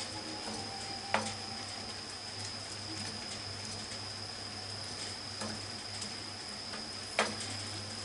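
Cabbage and tofu frying in a pan with a steady sizzle while a wooden spatula stirs and breaks up the tofu, with two sharp knocks of the spatula against the pan, about a second in and near the end.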